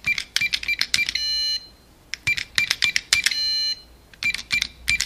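Intro sound effect: quick runs of sharp clicks with short high beeps, twice ending in a ringing, bell-like ding about a second and about three seconds in, with a third run of clicks near the end.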